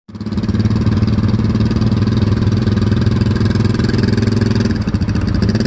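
Side-by-side UTV engine running loud and steady under load while the machine crawls through a deep rut with a front wheel lifted. Its pitch holds level, wavering briefly about five seconds in.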